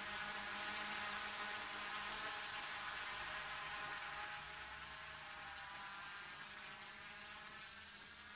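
DJI F450 quadcopter's motors and propellers buzzing in flight, a steady whine that grows fainter over the last few seconds as it moves away.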